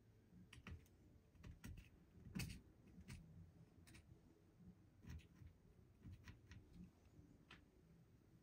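Faint, scattered clicks and light taps of small metal parts and cleaning tools being handled while cleaning a revolver, about a dozen over several seconds, the loudest about two and a half seconds in.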